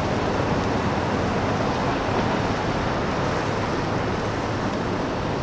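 Steady roadside vehicle noise: a continuous rumble and hiss of engines and traffic with a low hum underneath, unchanging throughout.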